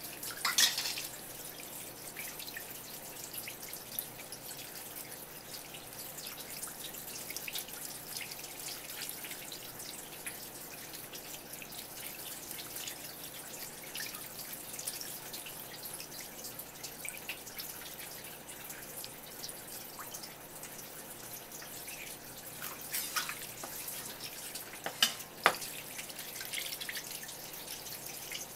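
Thin stream of tap water running steadily and splashing onto a split sardine held under it and onto a wooden cutting board as the fish's belly is rinsed out. A few sharp knocks come about a second in and near the end.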